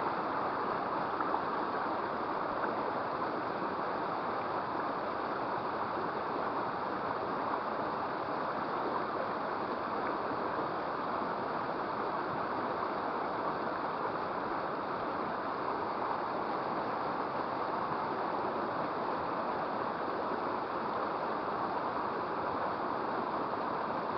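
Steady rushing of flowing water in a small river.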